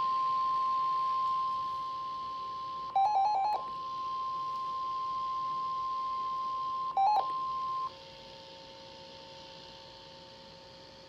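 Weather radio sounding the steady 1050 Hz warning alarm tone that comes before a warning broadcast; it cuts off about eight seconds in. Two short bursts of rapid beeping break in, about three seconds in and again near seven seconds.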